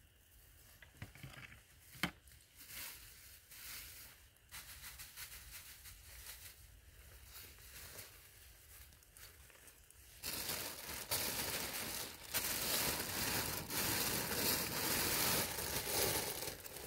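Plastic bags crinkling as they are handled: faint scattered rustles and clicks at first, then loud, continuous crinkling from about ten seconds in.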